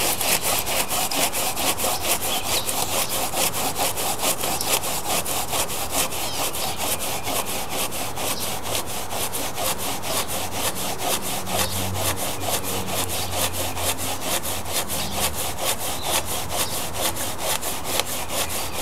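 Hand saw cutting through a wooden board, with quick, even back-and-forth strokes that keep up a steady rhythm.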